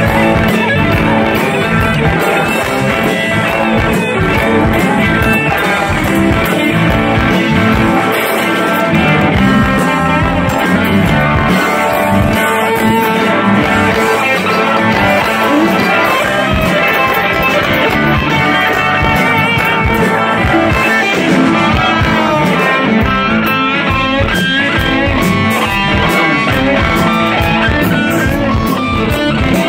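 Live blues-rock band playing an instrumental passage, with an electric guitar lead of bending notes over drums and bass.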